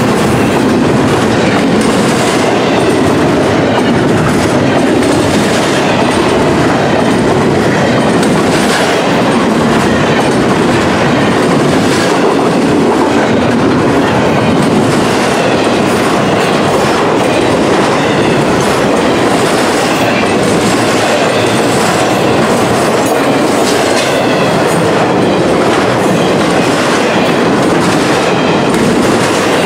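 Double-stack intermodal freight train rolling past close by: the steady, loud noise of the container well cars running over the rails, with occasional wheel clicks.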